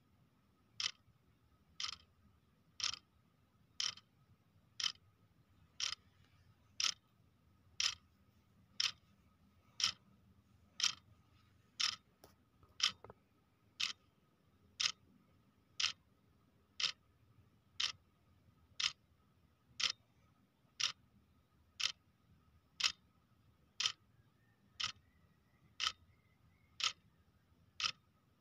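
Clock ticking, one sharp tick about every second in a steady rhythm, with a faint steady tone beneath.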